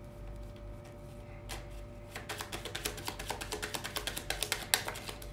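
Tarot deck being shuffled by hand: a quick run of card clicks, about seven a second, starting about a second and a half in and stopping just before the end.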